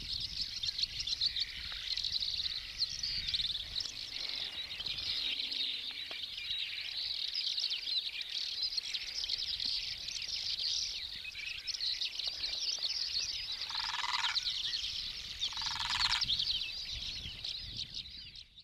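A dense, steady chorus of high-pitched bird chirping. Near the end come two short, louder calls about two seconds apart.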